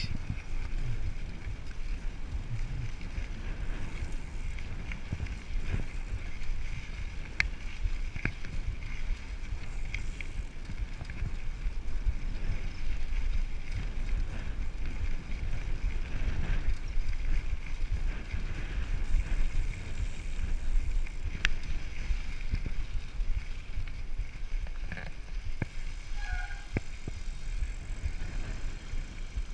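Mountain bike rolling along a dirt singletrack: wind buffeting the microphone and the tyres rolling steadily on dirt, with scattered clicks and rattles from the bike as it rides over the rough ground.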